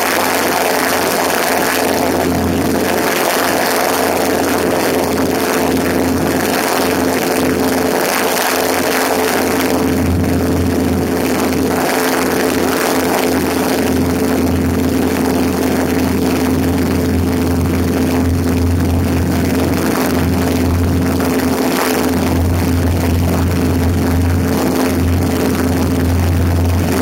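Cessna 150's engine and propeller droning steadily in cruise flight, with wind rushing over the strut-mounted camera.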